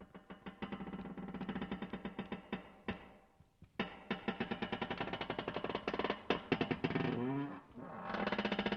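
Metal creaking in three long, drawn-out creaks separated by short pauses. Each creak is made of rapid rattling pulses, and the pitch wavers as the middle one ends.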